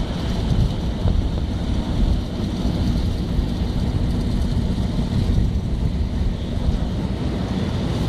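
Schlüter Super 1500 TVL tractor's diesel engine running steadily under load as it pulls a plough, with heavy wind buffeting the microphone.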